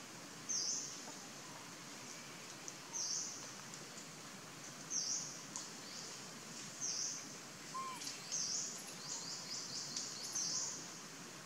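A bird giving short, high-pitched calls every couple of seconds, with a quick run of several calls about nine seconds in, over a steady background hiss.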